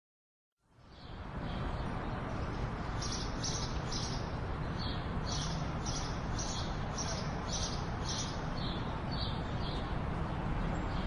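Nature ambience: short high bird chirps repeating about twice a second in runs over a steady rushing background noise, which fades in from silence at the start.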